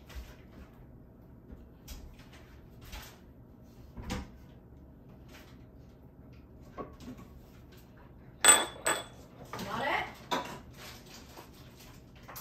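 Kitchen utensils and dishes clinking while a cake is being made: light scattered clicks, then two sharp metallic clinks that ring, about two-thirds of the way in, followed by a second of scraping and clatter.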